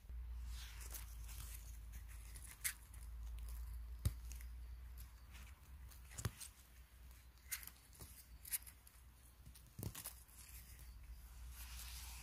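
Scattered sharp snaps and tearing sounds of mushroom picking on a mossy forest floor, with a low steady rumble that stops near the end.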